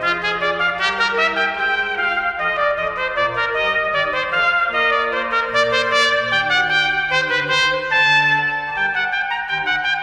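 Background music: a melody of held notes over lower sustained notes, running steadily without a break.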